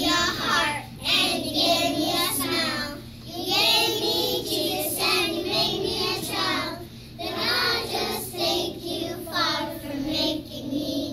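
A class of kindergarten children singing a song together, phrase after phrase with brief breaths between.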